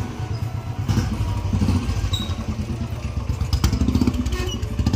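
Royal Enfield Bullet's single-cylinder engine running with a steady, low thumping beat as the motorcycle rides off slowly with two people aboard.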